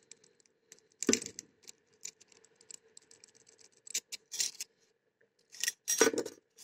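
Large jiggler key being raked and wiggled in a single-sided wafer lock: quick irregular metal clicking and rattling, with a louder clack about a second in and more near the end. The wafers are not giving; the lock stays shut.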